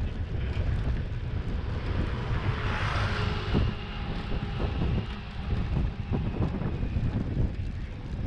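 Wind buffeting a handlebar-mounted GoPro's microphone and a bicycle's tyres rumbling and rattling over brick pavers as it rides. A swell of hiss rises and fades about three seconds in.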